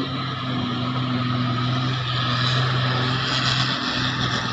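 Diesel engine of a dump truck running steadily as it drives along a dirt haul road, with a rushing hiss that grows from about halfway through.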